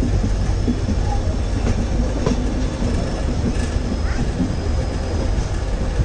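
Passenger train running along the track, heard on board: a steady low rumble of the wheels and carriage, with a few sharp clicks.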